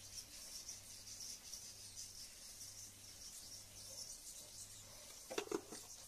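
Rice, pepper and garlic frying in olive oil in a nonstick frying pan: a faint, steady sizzle over a low hum. A couple of light knocks come near the end.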